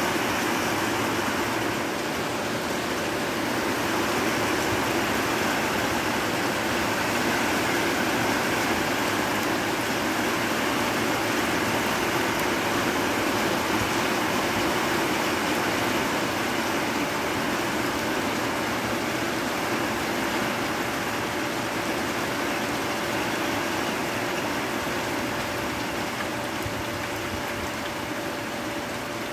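Storm outside at night: a steady, unbroken rush of heavy rain, with a faint steady hum underneath that grows plainer in the second half.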